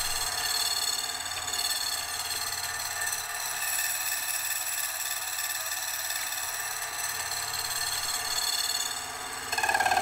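A slitting saw on a milling machine running and slowly cutting lengthwise through a brass-coloured rod, slitting the stock for a split big-end bushing. It makes a steady high, multi-toned whine, and about 9.5 seconds in the sound shifts to a louder, lower whine.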